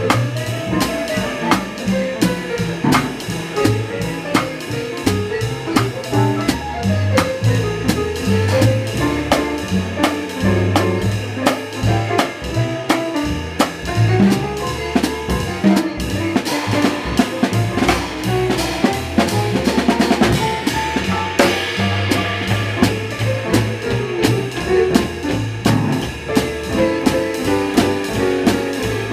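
Live small-group jazz led by a drum kit played with sticks, with ride cymbal, snare and bass drum accents, over walking double bass and piano. About two-thirds of the way through the drummer plays a quick roll.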